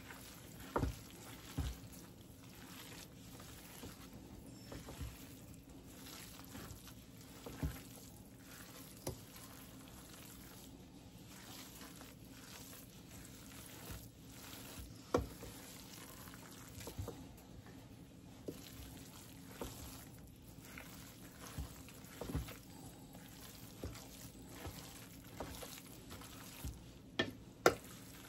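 A spoon stirring a thick, moist cornbread dressing mixture in a stainless steel mixing bowl: a soft, wet scraping broken by a scattering of short sharp knocks, the loudest near the end.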